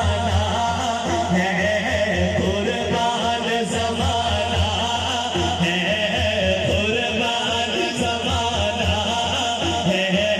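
Devotional naat singing over a sound system: a voice drawing out long, wavering melodic lines with no clear words, over a steady low hum.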